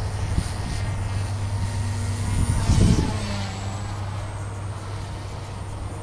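Align T-Rex 150 DFC micro electric RC helicopter flying, its high-pitched whine dipping in pitch about three seconds in and climbing back as it manoeuvres. A steady low rumble sits under it, with a louder burst just before the dip.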